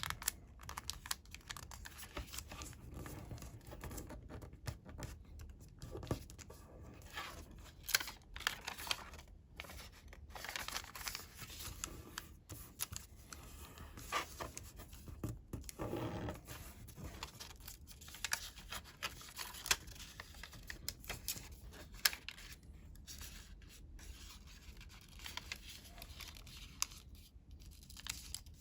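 Square coloured origami paper being handled and folded: irregular rustling and crinkling, broken by short crisp snaps and scrapes as creases are pressed.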